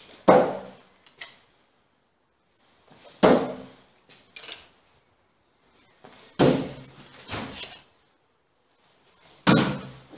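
Thrown nail, knife and vz. 58 bayonet striking a standing block target: four sharp hits about three seconds apart, each with a short echo in a bare hall, three of them followed about a second later by a lighter knock.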